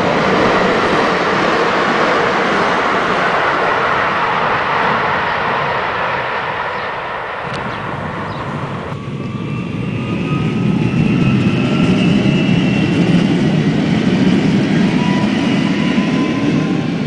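AGC regional multiple unit passing close by with steady rolling noise. About halfway the sound changes abruptly to a low rumble with several slowly rising whines, as of a train pulling away.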